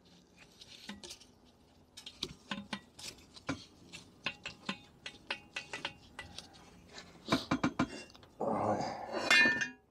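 Light metallic clicks and knocks as gloved hands grip and work the finned flywheel fan of a Minarelli V1 50cc two-stroke moped engine on the bench. A quick run of knocks comes about seven and a half seconds in, then a louder clatter with some metallic ringing.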